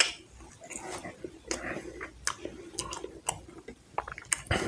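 A person chewing a mouthful of fast food, with short sharp wet mouth clicks scattered irregularly.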